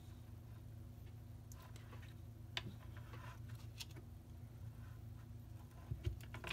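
Light, scattered clicks and taps of a wooden dowel axle and popsicle sticks knocking together as a small popsicle-stick car body is slid onto its axle, with a few quick clicks near the end. A faint steady low hum runs underneath.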